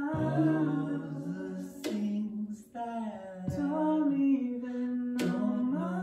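A voice singing a slow melody in long held notes with short breaks between phrases, over a small acoustic guitar.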